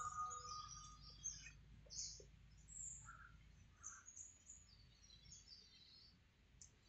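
Faint birds chirping in scattered short calls, with the last of a sung song fading out in the first second.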